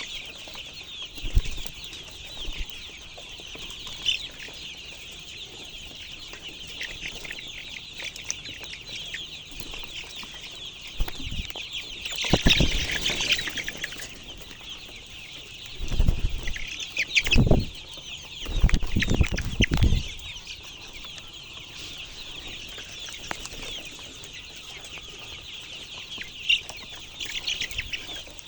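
A flock of chickens calling continuously, many overlapping high calls. Several louder bursts of rustling and bumping stand out, about twelve seconds in and again between about sixteen and twenty seconds.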